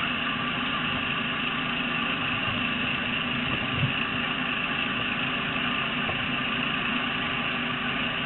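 An engine idling nearby, a steady even drone with faint fixed tones.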